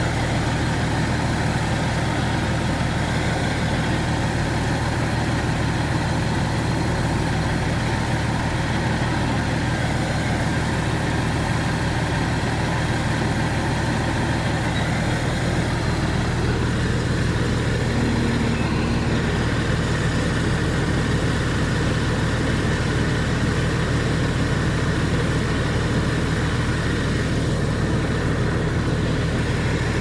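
Rice combine harvester's engine running steadily, an even low drone that holds the same speed throughout.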